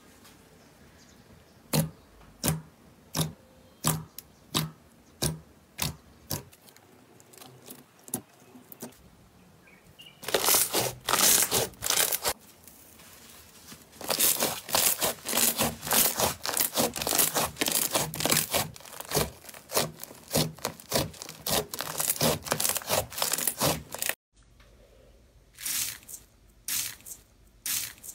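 Slime handled by hand: a run of sharp, evenly spaced pops from clear glitter slime, then long stretches of dense crackling and popping as a white slime is pressed and kneaded, with a few separate pops near the end.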